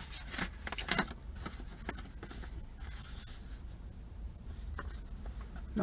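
Paper handling: an envelope and banknotes rubbed and scraped together, with a few light taps.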